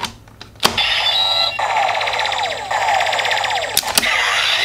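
CSM Double Driver toy transformation belt: a sharp plastic click as a Gaia Memory is pushed into its slot, then the belt's electronic sound effect, a fast warbling run of beeps and falling sweeps. Near the end come a couple of clicks as the driver is snapped open, and a rising electronic glide.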